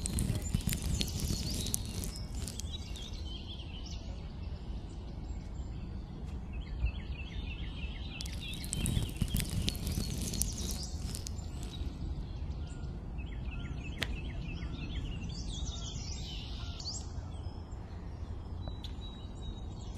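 Birds chirping in several short bouts over a steady low outdoor rumble, with a single small click near the middle.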